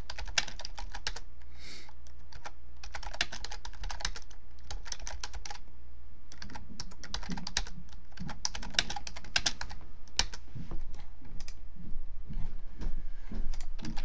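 Typing on a computer keyboard in quick bursts of keystrokes with short pauses between them.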